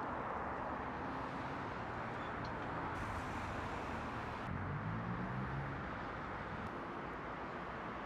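Steady road traffic noise, with a low engine hum from a passing vehicle swelling briefly about halfway through.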